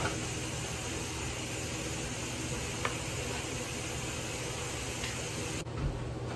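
Steady sizzling hiss from meat and onions frying in a pan, over a low steady hum. The brightest top of the hiss drops away suddenly about five and a half seconds in.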